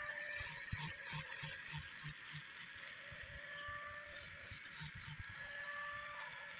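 Angle grinder with a sanding disc grinding a steel knife blade. Its whine comes and goes with the load, over a quick rhythmic pulsing of about three beats a second.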